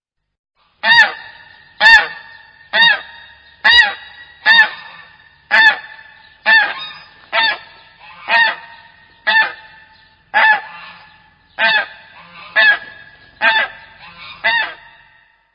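Goose honking over and over, about fifteen short nasal honks at roughly one a second, each rising and falling slightly in pitch.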